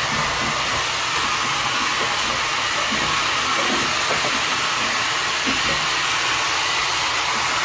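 Steady, even hiss of rushing air, unchanging in level throughout, with a few faint light ticks of handling.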